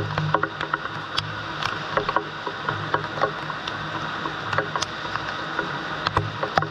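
Water running and splashing from a large PVC pipe, with sharp knocks and clatter of plastic pipe sections being handled and set down.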